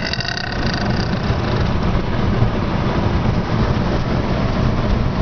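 Steady low rumble of a car's engine and road noise heard inside the cabin, with a few brief high tones in the first second.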